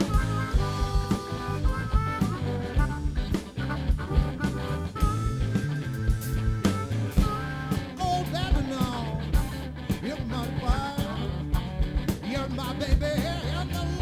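Blues-rock band playing an instrumental break: a steady drum beat and repeating bass line under held notes, with a lead line bending up and down in pitch in the second half.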